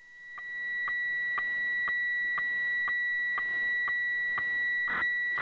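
HF weather-fax (radiofacsimile) signal from a shortwave radio, caught in the middle of a transmission. It is a steady high tone with a short tick about twice a second, each tick marking one scan line of the picture. It fades up over the first second as the radio's volume is turned up.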